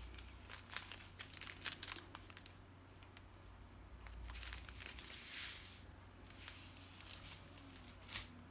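Strip of clear plastic packets of diamond-painting drills crinkling as it is handled: scattered crackles, then a longer rustle about five seconds in, and a last click near the end.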